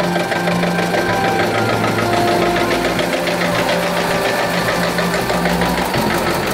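Vintage farm tractor engine running at a steady pace as the tractor drives slowly past, with background music.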